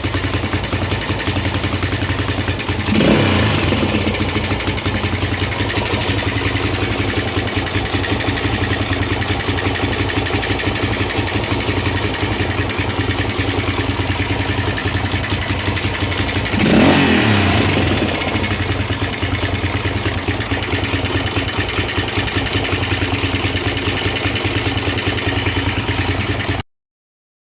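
Honda XLX 350's single-cylinder four-stroke engine running with a loud mechanical clatter, revved briefly twice, about 3 seconds in and about 17 seconds in. The racket, first feared to be the connecting rod, comes from a loosened bolt on the cam chain sprocket.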